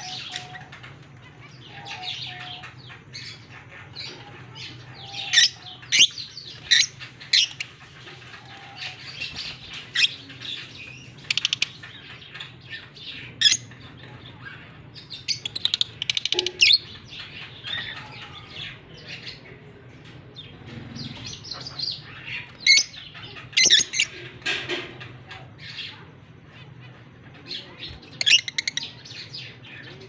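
A flock of African lovebirds chirping and squawking: many short, sharp, high-pitched calls at irregular intervals, some loud, with wings flapping now and then. A low steady hum runs underneath.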